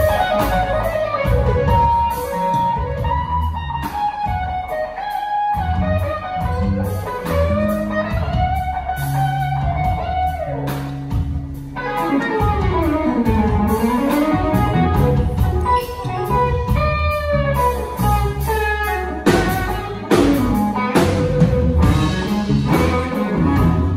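Live band playing: an electric guitar lead with sliding, bent notes over drum kit and electric bass.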